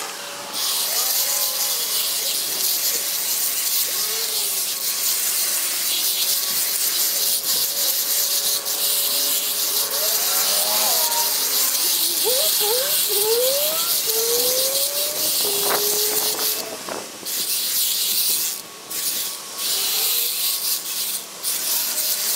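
A handheld power tool running as it cuts into brush, with a high hissing whine that stops and restarts several times on the trigger near the end. A string of short squeals rises and falls in the middle.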